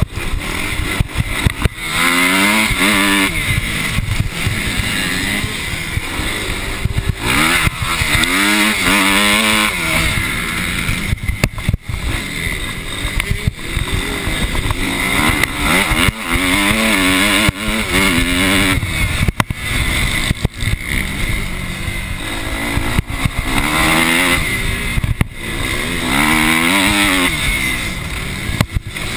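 Motocross bike engine revving hard under racing throttle, the pitch climbing and dropping in surges every several seconds. A steady rush of noise and frequent knocks from the rough track sit under it.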